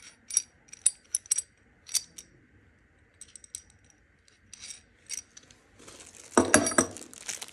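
Small metallic clinks from an extended scope mount being handled: its loose steel clamp nuts and washers rattle in a scattered series of sharp clicks with a ringing tail. Near the end there is a rustle and a louder knock of handling.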